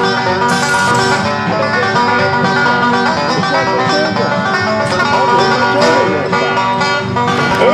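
Instrumental bluegrass-style music led by a plucked banjo with guitar.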